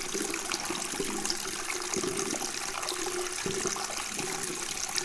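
Aérospatiale Alouette III (Chetak) helicopter hovering, its turbine and rotor making a steady rushing noise.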